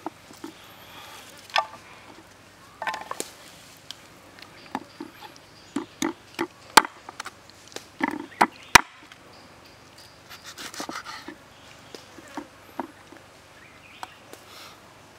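Cleaver chopping a raw chicken leg on a round wooden chopping block: irregular sharp knocks, the two loudest about seven and nine seconds in.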